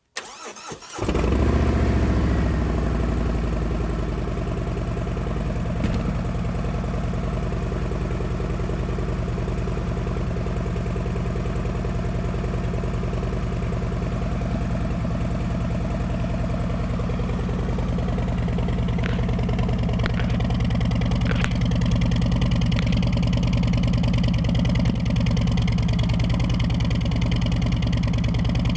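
Harley-Davidson Milwaukee-Eight V-twin on a Street Glide being cold-started through Vance & Hines High Output 450 slip-on mufflers: a short crank, the engine catching within a second and running briefly higher, then settling into a steady idle.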